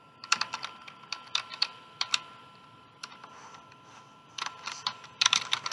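Computer keyboard typing: quick runs of sharp key clicks in several short bursts with pauses between them.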